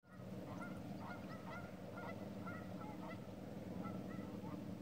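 A flock of geese honking across the water: many short, overlapping calls, several a second, over a steady low hum.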